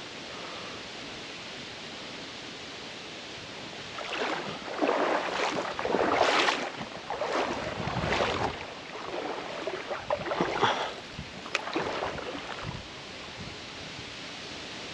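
Irregular splashing and sloshing of water in a run of uneven surges lasting several seconds, starting about four seconds in, over a steady hiss of stream noise.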